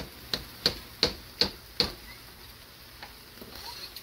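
A steel chef's knife blade tapped against the rim of a pot six times in quick succession, about three sharp clicks a second, knocking chopped chives off into mashed potatoes.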